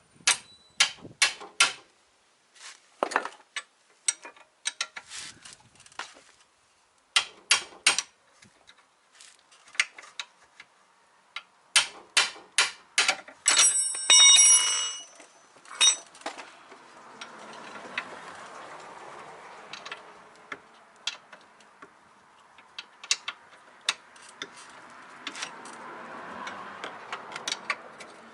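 Ratchet wrench clicking in short runs while loosening an 18 mm bolt, with a metallic clink that rings briefly about halfway through. In the second half a fainter rustle of handling, still with scattered clicks.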